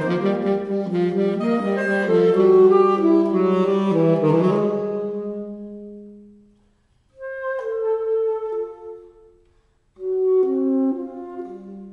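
Alto, tenor and baritone saxophone trio playing: a held chordal passage fades away over the first six seconds or so, then after a brief silence two short, quieter phrases follow, each ending with a small gap.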